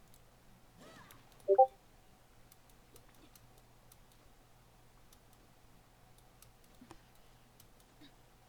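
An electronic device gives a loud, very short double beep about one and a half seconds in. Faint scattered clicks and a low steady hum run underneath.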